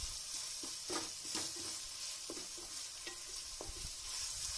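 Sliced onions and tomatoes sizzling in ghee and oil in a metal pot, stirred with a wooden spatula that scrapes and knocks against the pot now and then.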